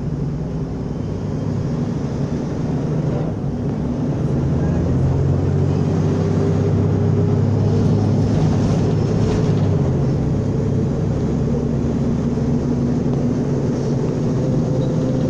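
Mercedes-Benz O500U city bus running under way with its automatic gearbox. The engine note climbs, drops about ten seconds in as the gearbox shifts up, then climbs again.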